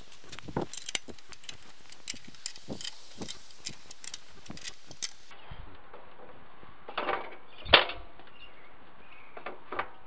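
Small metallic clicks and clinks of hand work on a garden tractor's hydrostatic control linkage, with a few louder knocks in the second half.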